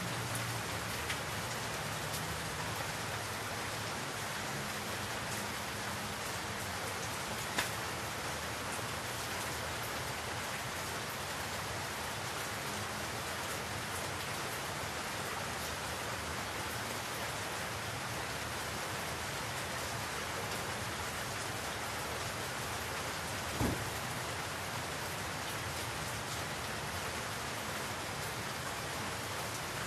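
Steady rain falling, an even hiss dotted with many small drop ticks. Two sharper knocks stand out, one about eight seconds in and one near twenty-four seconds.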